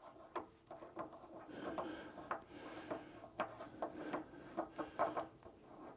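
Quiet scattered metallic clicks and light scraping as a steel nut is handled and fitted at the milling machine's spindle nose.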